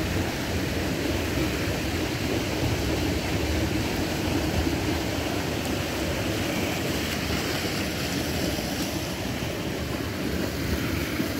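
Floodwater of a swollen creek rushing steadily.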